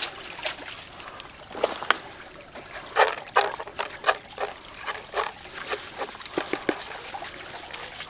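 Creek water splashing and trickling around a plastic gold pan worked in the shallows, in short irregular splashes over a light steady wash of water.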